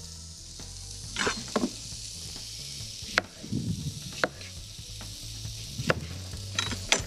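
Steady sizzling hiss of food frying in a pan on the stove, with a handful of sharp knife clicks as a courgette is cut.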